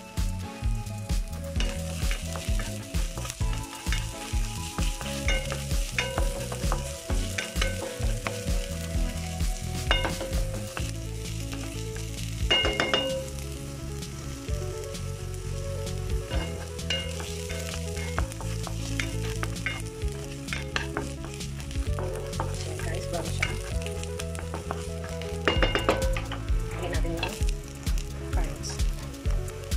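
Chopped onion and garlic sizzling as they sauté in oil in a non-stick wok, stirred now and then. Carrot sticks go in near the end.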